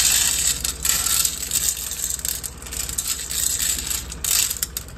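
Dry cat kibble poured from a plastic scoop onto a round metal tray: a dense rattle of hard pellets hitting and scattering on the metal. It is heaviest in the first second and again about four seconds in.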